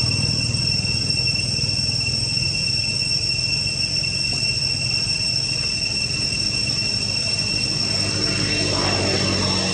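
Steady high-pitched insect drone, typical of cicadas in tropical trees, holding two even pitches throughout, with a low rumble underneath that swells a little near the end.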